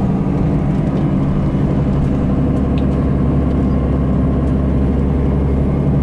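Steady engine and road noise of a moving vehicle, heard from inside the cabin as a continuous low rumble with a steady hum.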